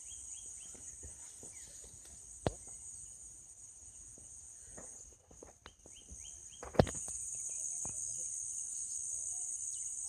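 Insects droning steadily at a high pitch, with a quick run of small-bird chirps near the start. The drone drops out briefly past the middle and comes back louder after a sharp knock; an earlier, smaller knock comes about a quarter of the way in.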